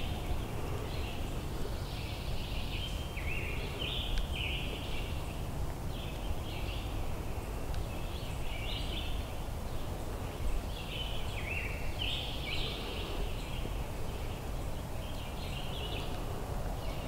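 Woodland songbirds singing: a steady run of short, high, stepped phrases, one after another, over a low steady rumble of background noise.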